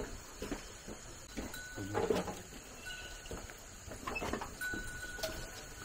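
Livestock calling: a few short cries, the loudest about two seconds in and another near the middle.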